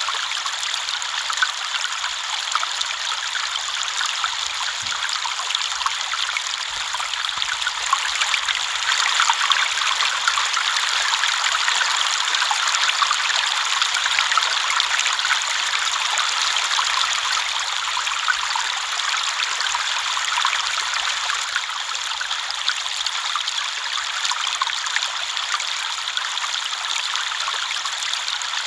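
River water flowing and burbling over stones, a steady rushing trickle with many small splashes, a little louder partway through.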